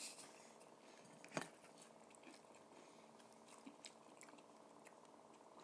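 Quiet chewing of crunchy snack chips, with one sharp crunch of a bite about a second and a half in and a few faint crackles after it.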